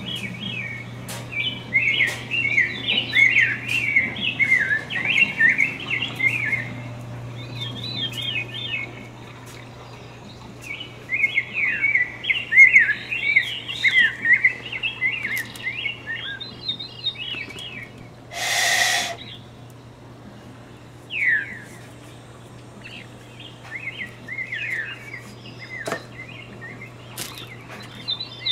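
A bird chirping and twittering in quick runs of short darting notes, in several bouts with pauses between, with one short harsh burst of noise a little over halfway. A faint steady low hum lies underneath.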